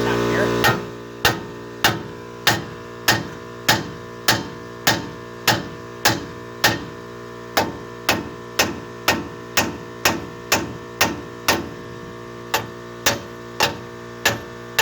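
Hand hammer striking steel on a truck's front suspension, about two blows a second with two short pauses, each blow ringing briefly: repeated hammering to free a part that is seized in extremely tight. A steady mains-type hum runs underneath.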